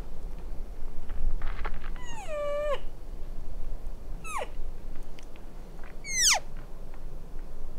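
Three elk cow-call mews, each a nasal, meow-like note sliding downward in pitch. The first, about two seconds in, holds briefly before dropping. The other two, at about four and six seconds, are short, quick downward slides.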